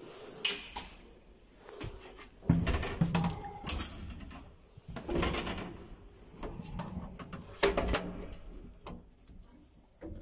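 An old SAFOV elevator's cabin doors and mechanism clunking and knocking, several separate knocks with the loudest about two and a half seconds in and another about three quarters of the way through.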